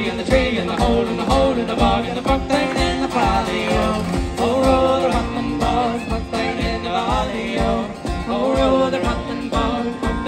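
Music with a singing voice over a steady beat.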